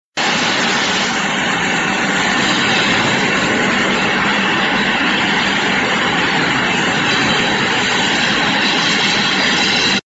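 Air-bubble fruit and vegetable washing machine running: a loud, steady rushing hiss of high-pressure air bubbling through the wash water.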